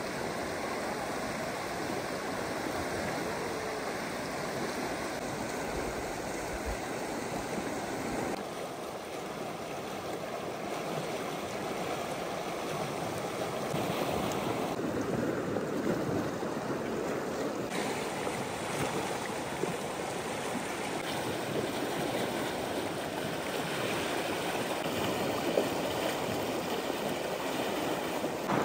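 Steady rushing of running water, its tone shifting abruptly a few times.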